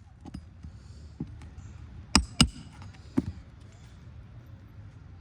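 Sharp metallic knocks from a roof snake tool being worked under the nails of asphalt shingles: a couple of light taps, then two quick strikes about two seconds in and a third about a second later, each with a short ring.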